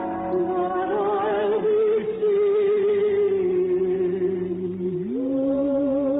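Slow ballad music from an old radio broadcast, with long held melody notes with vibrato, stepping up to a higher held note about five seconds in.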